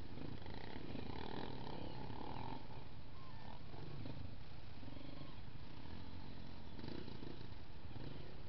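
Dirt bike engines running at low revs as the bikes move slowly along the trail: a steady rumble whose pitch wavers slightly.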